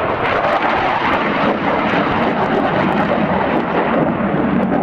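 Engine noise from a single-engine F-16 fighter jet flying a display manoeuvre: a loud, steady rushing roar.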